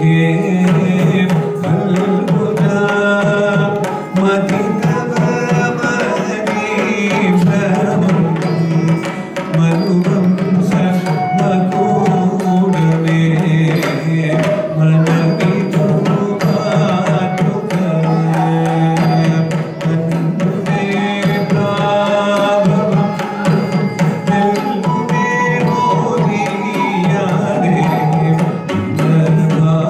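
South Indian classical dance music: hand-drum percussion keeping a rhythm under a melodic line, over a low sustained tone.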